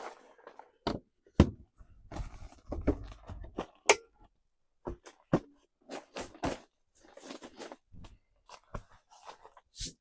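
Irregular clicks, knocks and rustling, with two sharper knocks about a second and a half in and about four seconds in.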